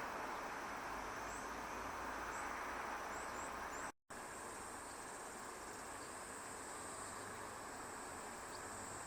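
Insects calling: a steady high-pitched trill runs after a short dropout about four seconds in. Before the dropout there is an even hiss with short high chirps about once a second.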